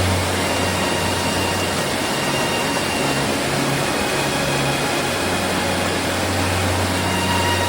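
Steady rushing roar of falling water at a waterfall, with a low rumble underneath.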